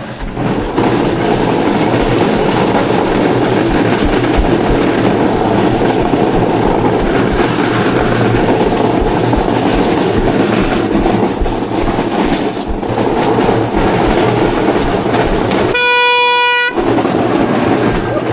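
Loud, steady rumbling noise. About three seconds before the end it is broken by one clean, horn-like beep lasting just under a second.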